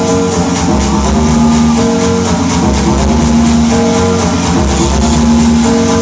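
Electronic dance music mixed by a DJ on CDJ decks, played loud: a steady high ticking about four times a second over a bassline and held synth notes.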